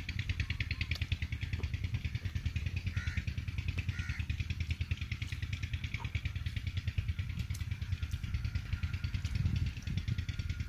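An engine running steadily with a rapid, even beat.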